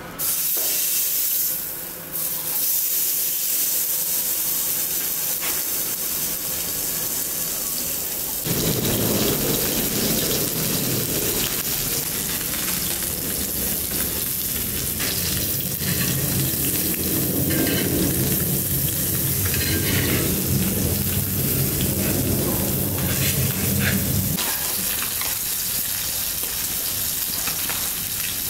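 Salmon fillets sizzling as they fry in oil on a hot cast-iron grill pan, a steady loud hiss throughout. A metal spatula scrapes the iron a few times in the second half, and a low rumble sits under the sizzle through much of the middle.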